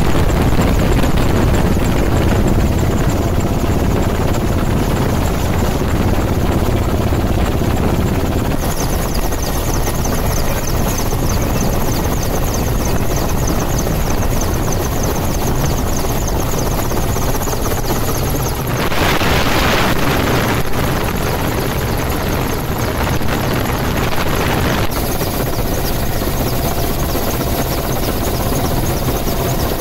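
Helicopter noise heard from on board: a steady, loud drone of rotor and engine, heaviest in the low range. A brief rush of hiss comes about 19 seconds in.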